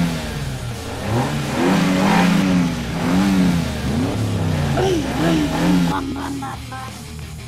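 Race-car engine sound revving up and down again and again, each rev rising and falling in pitch about once a second; it fades toward the end as music comes in.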